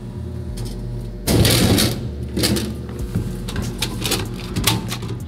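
Drink bottles in a Pepsi vending machine's delivery bin: a loud clatter about a second in, then several knocks and rattles as the bottles are pulled out through the flap, over the machine's steady low hum.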